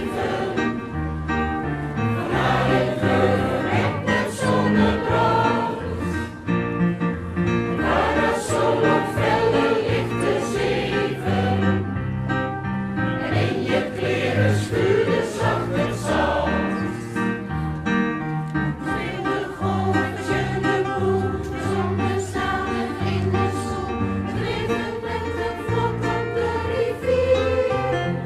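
A choir singing with instrumental accompaniment, held notes over a steady low bass line.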